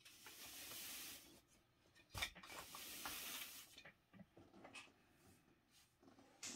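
3D-printed plastic terrain tiles being slid across a gaming mat with a rubbing scrape, a sharp click about two seconds in as one tile knocks against another, then more sliding and a few light clicks.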